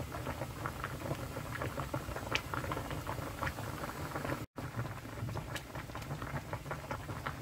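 Pot of spicy oyster stew at a rolling boil: the red broth bubbling, with a steady patter of small pops.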